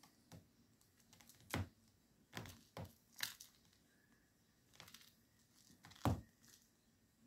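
British Shorthair cat batting and pouncing on a toy mouse on a string: irregular soft thumps, scratches and rustles of paws on carpet and the toy. The loudest, deepest thump comes about six seconds in, as the cat tumbles onto its side.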